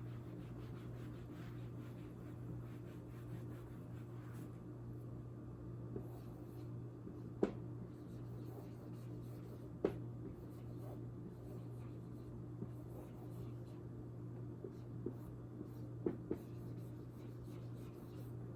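Handwriting strokes scratching faintly, with a few sharp taps or clicks, over a steady low electrical hum.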